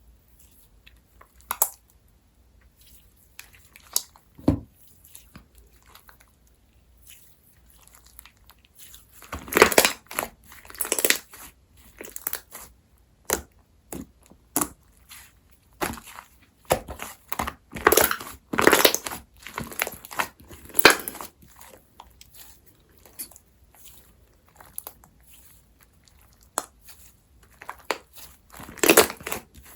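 Slime being pressed and squished by hand, making irregular sharp clicks and small pops. These are sparse at first and come thick and fast from about nine seconds in.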